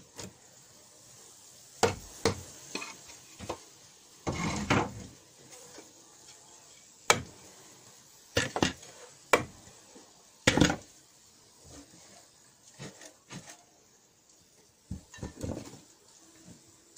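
Metal hive tool prying and scraping against the wooden cover boards and frame top bars of a beehive: scattered sharp clicks and knocks with short scrapes, one longer scrape a little after four seconds in.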